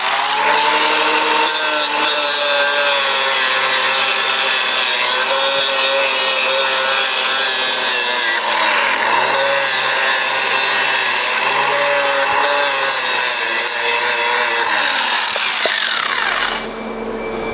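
Angle grinder grinding paint off a steel hand-truck frame tube, throwing sparks. Its pitch sags each time the disc bears into the metal, several times over. Near the end it is released and winds down to a stop.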